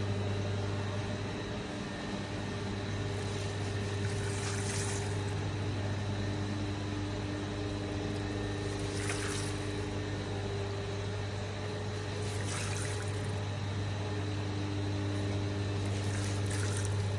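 A large crowd of koi splashing and churning at the water's surface as they feed, with brief louder splashes about every four seconds, over a steady low hum.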